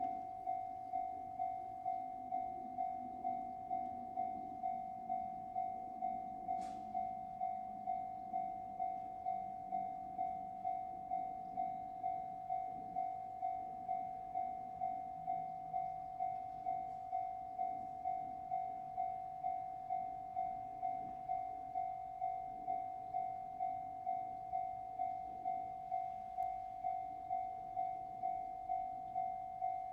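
Railway level-crossing warning bell ringing at a Japanese crossing: one bell-like tone struck over and over at an even pace, a little under twice a second, the signal that a train is approaching the crossing.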